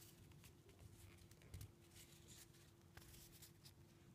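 Near silence: faint ticks and a soft rustle of paper trading cards being handled and slid between fingers, over a faint steady hum.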